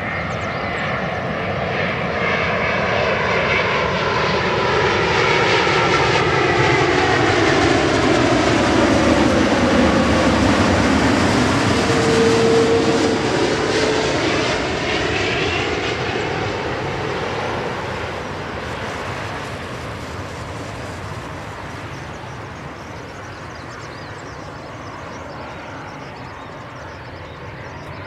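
Boeing 787-8 Dreamliner's Rolls-Royce Trent 1000 turbofans at approach power as the airliner flies low overhead on landing, a jet rumble with whining tones that slide down in pitch as it passes. It is loudest about halfway through, then fades steadily as the aircraft draws away down the runway.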